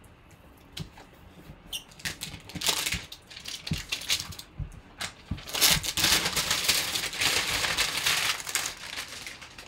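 Plastic shrink wrap crinkling as it is pulled off a cardboard box by hand. A few scattered crackles come first, then dense, steady crinkling from about halfway through until near the end.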